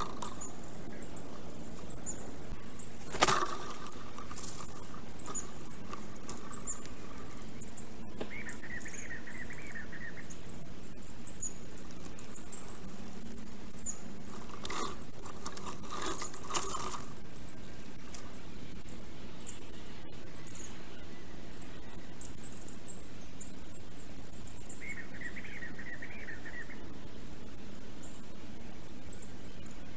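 Small forest birds chirping: many short, very high-pitched calls in quick succession, with a lower warbling call twice and a few brief crackles.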